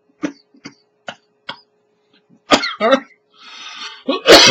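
Man coughing and choking after a drink went down the wrong pipe. A string of short coughs gives way to harder ones, with the loudest spluttering near the end.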